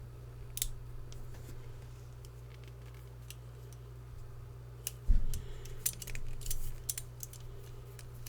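Light metallic clicks and scratches of a bobby pin being worked inside a handcuff keyhole to pick the lock, thickening in the second half, with one dull knock about five seconds in. A steady low hum runs underneath.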